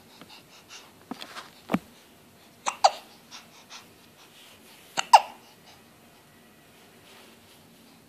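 A baby hiccuping: three sharp hiccups a few seconds apart, with faint babbling sounds between them.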